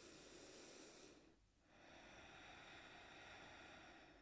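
Near silence with faint, slow breathing: two long breaths of soft air noise, separated by a brief pause.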